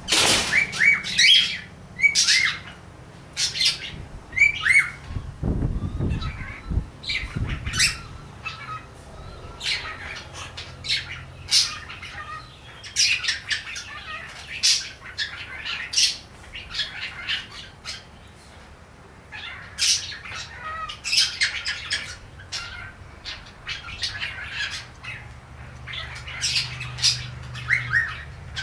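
Pet cockatiel chattering: a rapid string of short chirps, squawks and falling whistles in bursts, with a short lull just past the halfway point.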